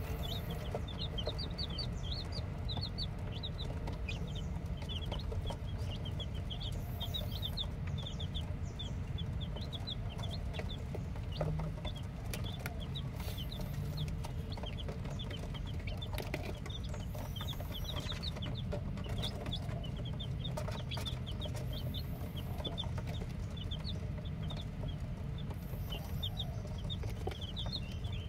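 A brood of newly hatched chicks peeping, many short, high chirps overlapping several to the second without a break. A steady low rumble runs underneath.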